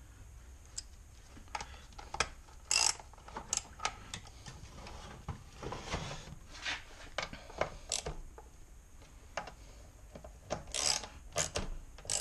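Irregular metallic clicks and short ratcheting scrapes from a Stihl MS 160 chainsaw's chain and bar being worked by hand, as the stretched chain is tightened.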